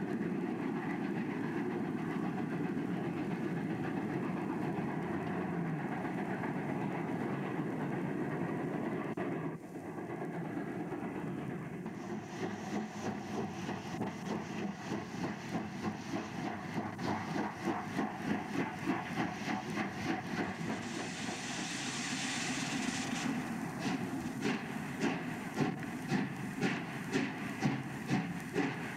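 Steam train running: at first a steady rumble, then an even rhythmic beat of the locomotive and wheels that grows plainer, with a burst of hiss about three-quarters of the way in.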